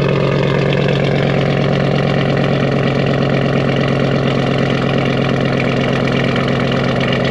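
Chevy Silverado pickup engine idling steadily and loud through a straight-pipe exhaust, its muffler cut out, with an aftermarket camshaft fitted.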